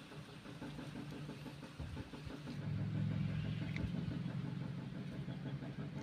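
A steady low engine hum, like a motor vehicle idling, growing louder about halfway through.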